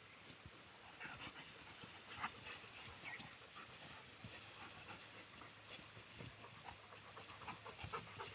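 Bhotia dogs play-fighting, heard as faint scuffles and short dog growls and yips, the loudest about two seconds in and a cluster near the end, over a steady high-pitched insect chirring.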